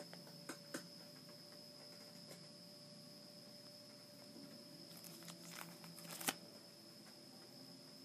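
Plastic sleeve pages of a trading-card binder being turned: faint crinkles and clicks, a couple near the start and a cluster about five to six seconds in that ends in one sharper click.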